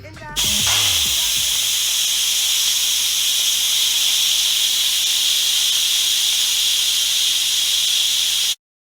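Instant Pot's pressure-release valve venting steam in a loud, steady hiss: the pressure being let out after cooking. It starts a moment in and cuts off suddenly near the end.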